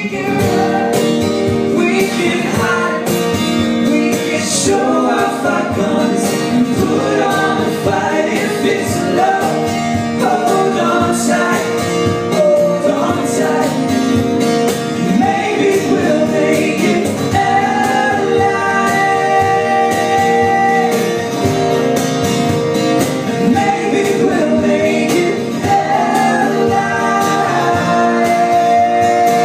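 Live song: a man singing, with guitar accompaniment, the voice holding long, bending notes.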